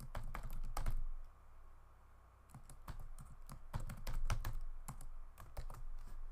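Typing on a computer keyboard in irregular runs of keystrokes: a short flurry at the start, a pause of about a second and a half, then a longer run of key clicks.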